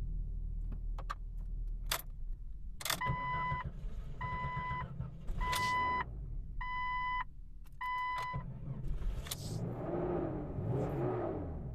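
Jeep Cherokee's dashboard warning chime sounding five times, evenly about a second apart. A few sharp clicks of the ignition key and switches come before it.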